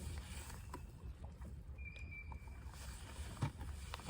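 Faint low rumble of a small fishing boat on the water, with a few soft knocks and a brief thin high tone about two seconds in.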